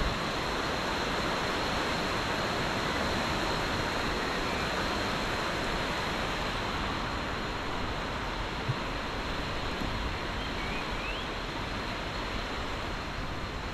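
Steady, even rushing of water.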